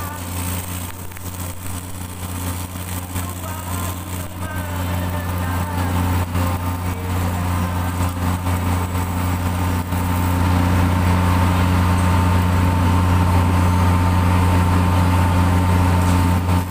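Steady low engine drone with a faint high whine above it, growing louder about ten seconds in.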